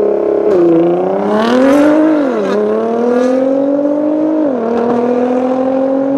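Nissan GT-R (R35) twin-turbo V6 engines at full throttle in a standing-start drag race. The revs are held steady at the line, then the pitch climbs as the cars pull away and drops sharply three times at the launch and the upshifts.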